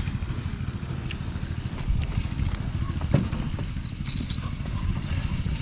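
Wind buffeting the microphone in a low, uneven rumble, with a single sharp click about three seconds in.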